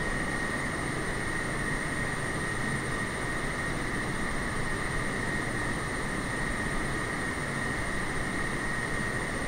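Boeing 747 jet engines running steadily: an even rushing noise with a constant high whine that holds without change.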